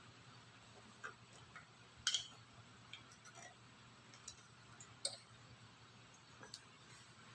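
Small parts and tools clicking and clinking as they are handled, about eight light clicks at irregular intervals, the loudest about two seconds in and again about five seconds in.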